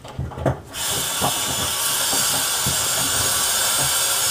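Water running into the kitchen sink and down through a newly installed garbage disposal, tested for leaks. A few light clicks, then a steady rushing that starts suddenly about a second in.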